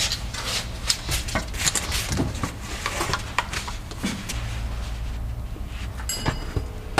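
Scattered clicks and knocks from hands and tools being handled, over a steady low hum that gets stronger about four seconds in. About six seconds in there is a brief metallic ring.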